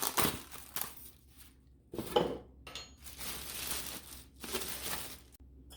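Packaging rustling and light clinks as the espresso machine's accessories are handled and taken out of the box, in a series of short bursts with one brief ringing clink about two seconds in.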